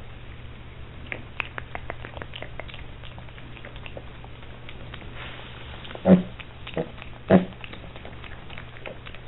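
A piglet eating feed pellets: crisp crunching and chomping clicks, with three short grunts about two thirds of the way through, the first and last the loudest.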